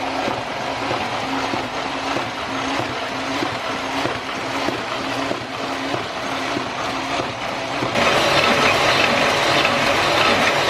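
Single-colour offset printing press, type 810, running with a regular repeating mechanical cycle. About eight seconds in, the sound suddenly becomes louder and harsher.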